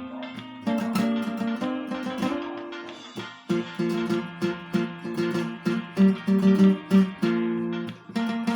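Acoustic guitar playing a hymn melody instrumentally, with picked notes over chords. There are a few louder accented notes about six to seven seconds in.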